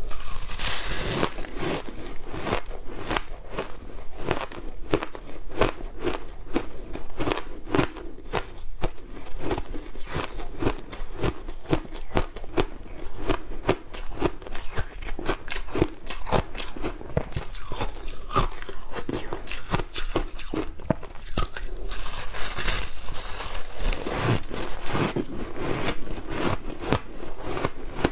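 Frozen matcha ice being bitten and crunched, a continuous run of sharp cracking crunches, louder about a second in and again near the end.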